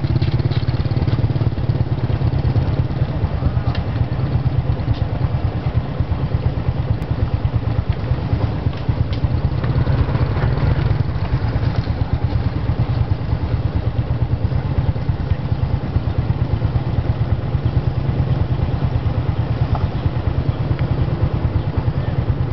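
Small motorbike engine running close by, a steady low rumble with fast, even firing pulses. A few faint knocks and clatters sound over it.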